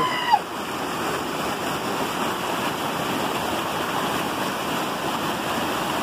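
Small waterfall running down a rock face into a shallow pool: a steady rushing of water.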